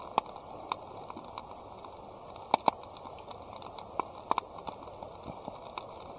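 Scattered sharp clicks and light taps at irregular times over a steady faint hiss, with a louder pair about two and a half seconds in and another few around four seconds in.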